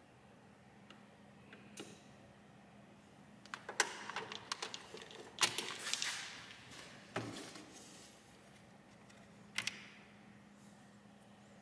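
Small plastic clicks and rattles of fuses and fuse-box parts being handled in a car's engine-bay fuse box: a cluster of sharp clicks and rustling in the middle, then one sharp click near the end, over a faint steady hum.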